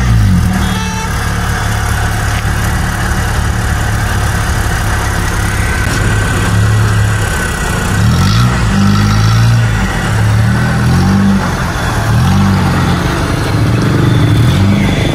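Off-road vehicle's engine running at a steady idle, then revved up and down repeatedly from about eight seconds in.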